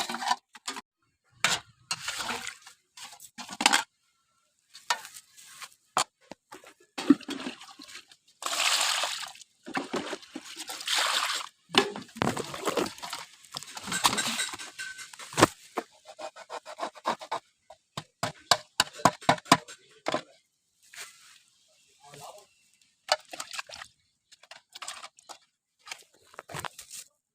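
Close-up eating sounds of crunchy snacks being bitten and chewed: irregular sharp crunches and clicks, with longer stretches of crackling noise, and pauses between.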